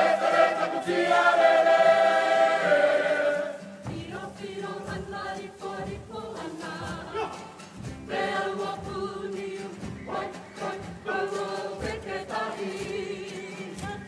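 Kapa haka group of men and women singing together with guitar accompaniment. The singing is loud with long held notes for the first few seconds, then drops to quieter singing over a steady rhythm of short sharp strokes.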